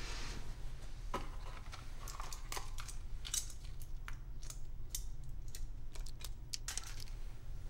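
Scattered light clicks and taps at an uneven pace, over a steady low hum.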